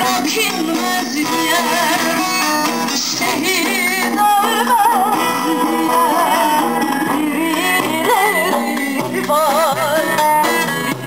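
A woman singing a Turkish folk song (türkü) into a microphone in a wavering, ornamented melody over plucked-string accompaniment, played through loudspeakers.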